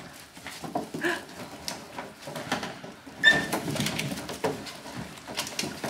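Collie puppies squeaking and whimpering in short high cries, the sharpest about three seconds in, amid scattered knocks and scrabbling against plastic tubs.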